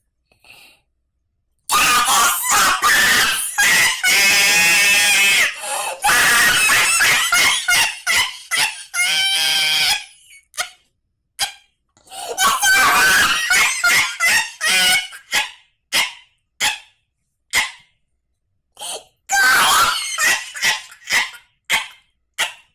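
A person screaming and shrieking in long loud bursts, the first starting about two seconds in, with short broken-off cries between them and a last burst near the end.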